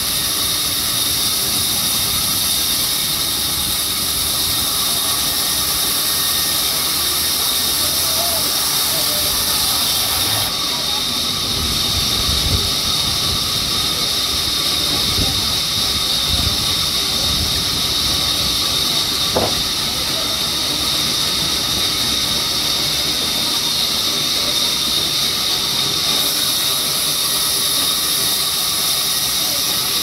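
Large sawmill band saw cutting through a crooked mahogany log: a steady high hiss with a constant thin whine over it.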